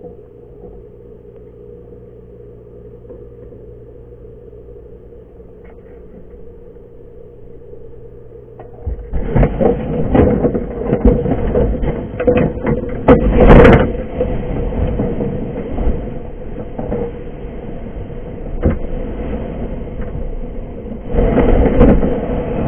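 Underwater sound picked up by a camera in its housing on a crab ring. A low steady hum with faint tones gives way, about nine seconds in, to loud rumbling water noise with many knocks and bumps. The biggest knock comes a few seconds after the rumbling starts, and there is another surge near the end.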